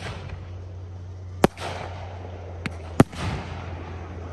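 Aerial fireworks shells bursting: three sharp loud bangs about a second and a half apart and one softer pop, each loud bang followed by a fading rumble, over a steady low hum.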